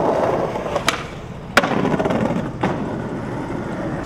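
Skateboard wheels rolling over stone paving, with a sharp clack of the board about one and a half seconds in and lighter clicks before and after it, the rolling going on between them.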